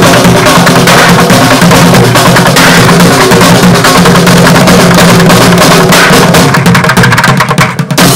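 Bucket drummers playing a fast, dense beat with drumsticks on plastic paint buckets and metal cans, loud throughout. Near the end the playing breaks into more separate strikes.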